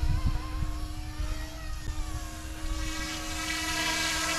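Electric RC helicopter's brushless main and tail rotors running at flight speed with a steady tone as it lifts off and climbs, growing louder and higher-toned from about three seconds in. A few low thumps come near the start.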